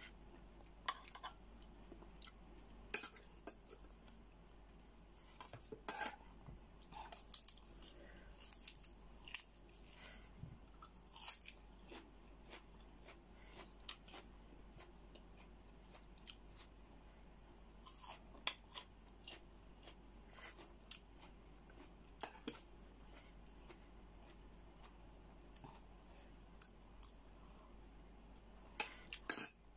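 Close-up eating of cooked brown crab: quiet chewing, with scattered short clicks and scrapes of a metal spoon against the crab shell and plate. The clicks come irregularly, bunched a few seconds in and again just before the end.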